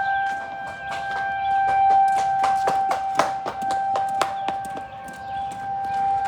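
Outdoor tornado warning sirens holding a steady tone, swelling and fading in loudness, with a fainter second siren slightly lower in pitch. Short sharp clicks sound over them, thickest in the middle.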